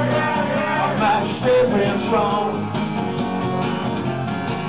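Acoustic guitar strummed in a live rock song, an instrumental passage between sung lines.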